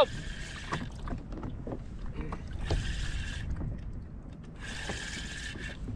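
Pflueger President spinning reel sounding in bursts of about a second, every couple of seconds, while a freshly hooked speckled trout is played. Under it is a low steady rumble of wind and water on the kayak.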